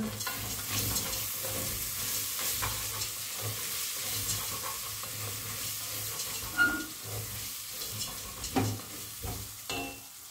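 Lentil soup ingredients (potato, lentils and turmeric) sizzling in oil in a pot as they are sautéed and stirred with a spoon. A few knocks of the spoon on the pot come in the second half, and the sizzle dies down toward the end.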